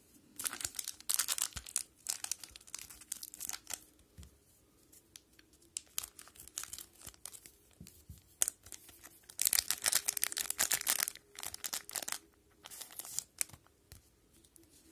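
Wrapper of an O-Pee-Chee hockey card pack being torn open and crinkled by hand, in several bursts with pauses between, the loudest about ten seconds in.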